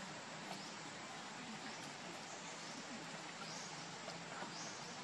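Faint outdoor ambience: a steady hiss with a thin high whine, brief high chirps about every second, and a few soft clicks.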